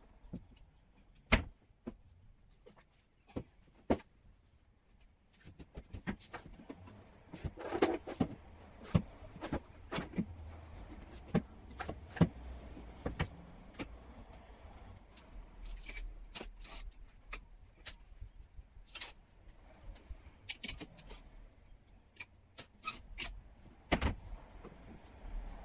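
Clicks and knocks of clothes being put away in a bedroom: wardrobe doors, clothes hangers and drawers, with clothes rustling in between. Three sharper knocks stand out, about a second in, in the middle and near the end.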